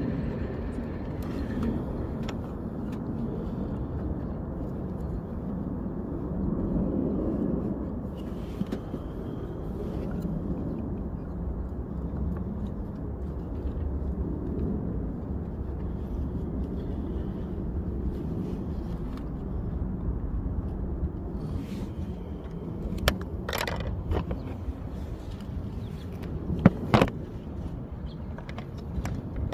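Light plastic clicks and scrapes of an LED replacement headlight bulb being handled and twisted into its headlight housing, the sharpest knocks a few seconds before the end, over a steady low rumble.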